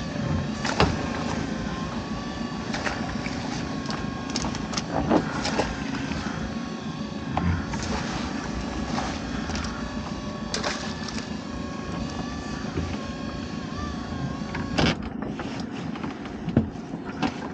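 A boat's motor running steadily with a faint even whine, while a netted lobster pot is handled, giving scattered short knocks and clatters.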